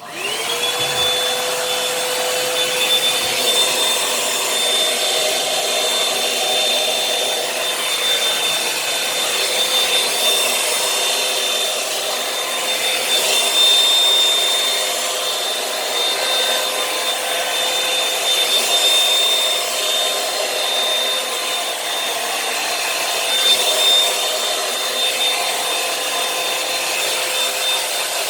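Revlon One-Step hot-air brush hair dryer switched on, its motor whine rising to speed within half a second and then running steadily with a constant rush of air.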